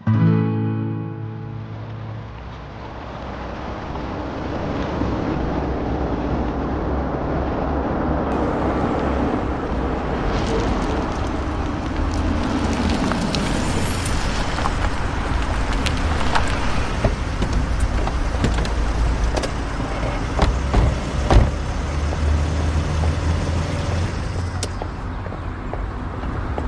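Motor vehicles driving, a steady engine and road rumble, with background music.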